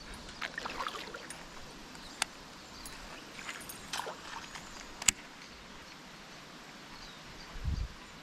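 Faint outdoor background with scattered sharp clicks and taps, the loudest a single click about five seconds in, and a few low thumps near the end.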